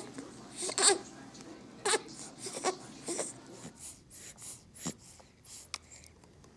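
Baby fussing with a series of short whimpering cries, followed by softer breathy sounds.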